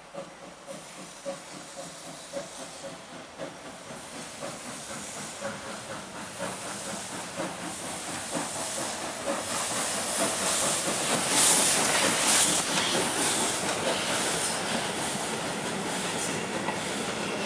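ČSD class 310 steam tank locomotive 310.23 pulling away with its train: a steady run of exhaust chuffs with hissing steam, growing louder as it approaches. The hiss is loudest about eleven to twelve seconds in as the engine passes, and the rolling of the carriages follows near the end.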